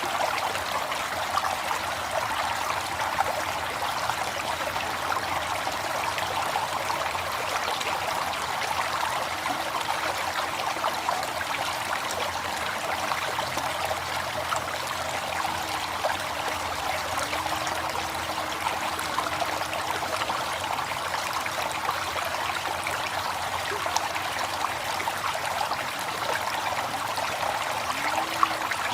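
River water flowing in a steady, even rush with no pauses. A faint wavering low tone sits under it through the second half.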